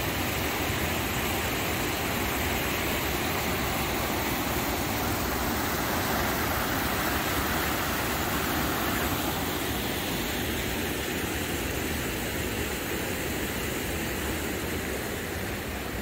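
Waterfall and rushing creek: a steady rush of falling, tumbling water, a little softer from about ten seconds in.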